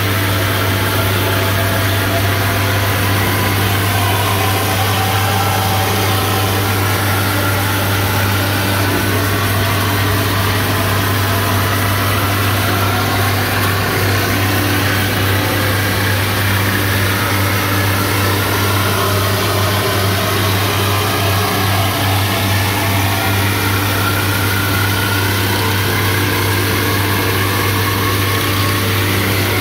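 Hamech DF140 woodworking machine running steadily, its motors and cutter spinning with a constant low hum and no change in load.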